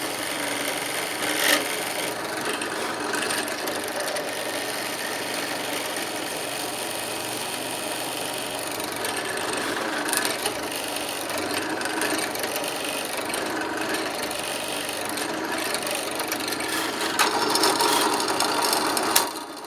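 Electric drill with a square-hole chisel adapter boring into peroba hardwood, the motor running steadily under load while the bit rasps through the wood. A sharp knock comes about a second and a half in and another near the end, and the cutting gets louder in the last few seconds.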